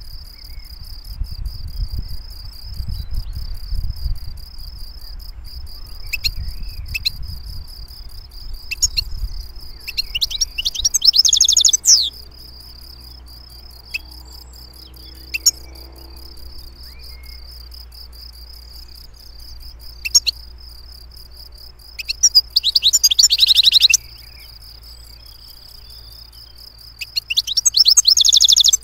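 European goldfinch singing: three bursts of rapid, twittering song with a few single call notes between them. A steady, high, pulsing trill runs underneath the whole time, and a low rumble sits under the first third.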